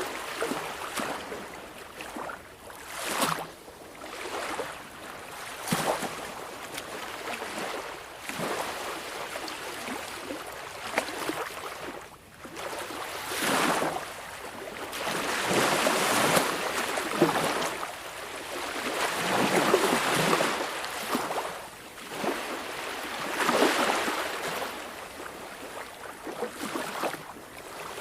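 Small waves of a calm sea washing on the shore, each rushing in and drawing back, rising and falling every few seconds with no break.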